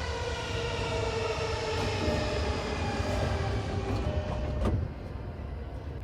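E233-1000 series electric train's traction motors whining in a stack of tones that slowly fall in pitch over low running rumble as the train brakes. About five seconds in there is a clunk and the sound drops away as the train comes to a stop.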